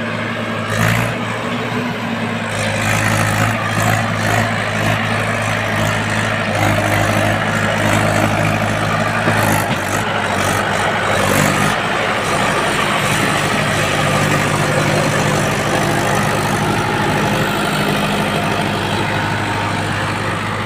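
Mahindra 415 DI tractor's four-cylinder diesel engine running steadily under the load of a fully laden trolley. It gets louder about two seconds in as the tractor comes close and drives past.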